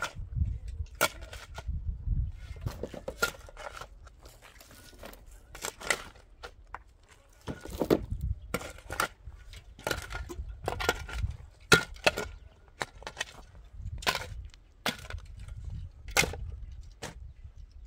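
Steel shovel digging into rocky soil and tossing dirt and stones into a metal wheelbarrow: irregular scrapes and clanks, about one or two a second.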